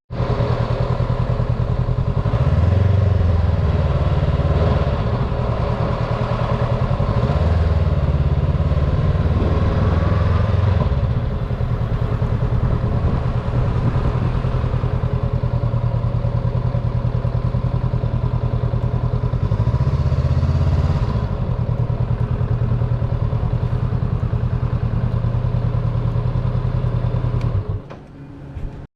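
Honda CB500X's parallel-twin engine running under way, the revs rising and settling a few times as the bike pulls away and changes speed. It drops off sharply near the end.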